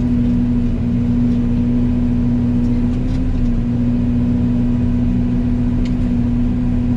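Yanmar Vio80 excavator running a Fecon FMX36 forestry mulcher head: a loud, steady machine drone with a strong constant hum. A few faint ticks sound over it.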